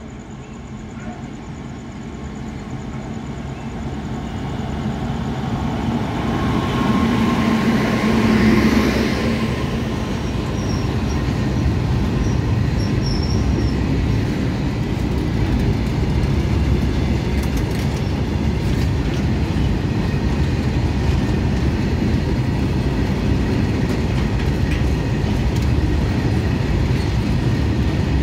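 A goods train approaches and passes close by, growing louder until the locomotive goes past about eight seconds in. Its long rake of covered wagons then rolls by with a steady rumble of wheels on the rails.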